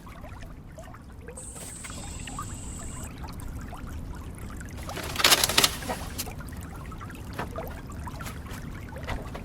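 Water trickling steadily, with scattered small clicks, a thin high steady tone for about a second and a half early on, and a brief loud noisy burst about halfway through.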